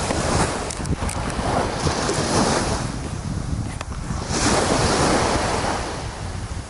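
Waves washing in on a beach in swells every couple of seconds, with wind rumbling on the microphone.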